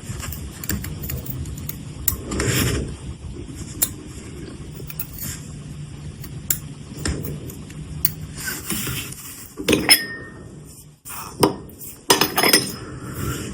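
Small metal watch tools and parts clicking and clinking on a workbench. There is a louder clatter about two and a half seconds in, a brief ringing clink near ten seconds, and a run of quick clicks near the end, over a low steady hum that stops about eleven seconds in.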